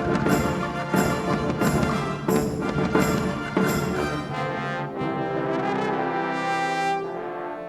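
Brass ensemble playing: short, punchy accented chords about every 0.6 s, then long held chords from about halfway through.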